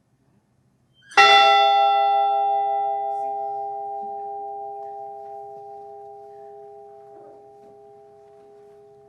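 The Edmund Fitzgerald's ship's bell is struck once, about a second in, and left to ring. Its higher overtones die away within a couple of seconds, while the deep tones hang on and slowly fade. It is a single memorial toll for one of the lost crewmen.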